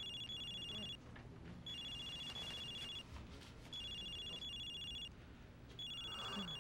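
Cell phone ringing: a high electronic two-note trill, one ring about every two seconds.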